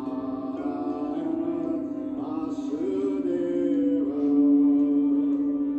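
Singing bowls sounding a sustained, steady drone that swells about four seconds in, with a voice chanting in long, gliding notes over it.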